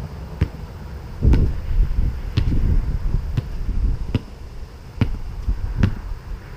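Basketball being dribbled, bouncing about once a second with sharp knocks over a low rumble.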